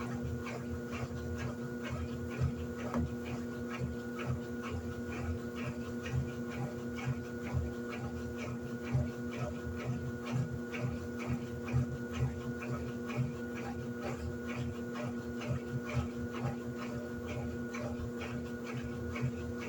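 Electrolux LED14 top-loading washing machine running, with a steady motor hum and a regular ticking or knocking at about three beats a second.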